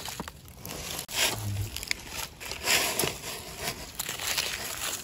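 Dry fallen leaves rustling and crackling in irregular bursts as hands move through the leaf litter and handle mushrooms. The loudest rustles come about a second in and again around three seconds in.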